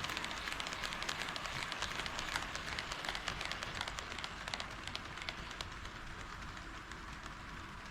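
HO scale model of a KATO D51 steam locomotive running on KATO Unitrack: a dense, fast patter of small wheel clicks over the rail joints with a light rolling hiss, getting a little quieter toward the end.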